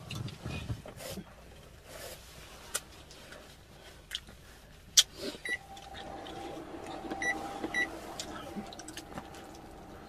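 Eating sounds: scattered clicks and clinks of utensils against dishware, the sharpest about five seconds in. In the second half there is a faint steady hum with a few short high beeps.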